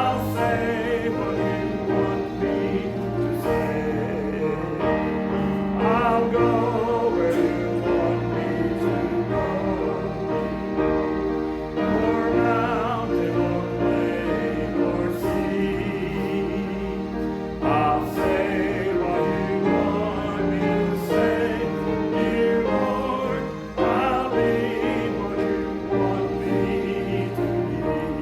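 Congregation and choir singing a hymn with instrumental accompaniment.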